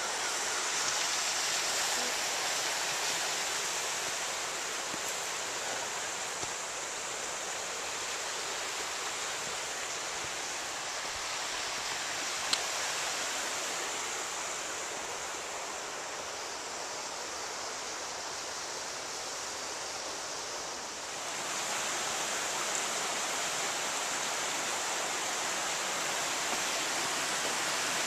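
Creek water rushing steadily, growing somewhat louder about three quarters of the way through. There is one brief sharp click a little before halfway.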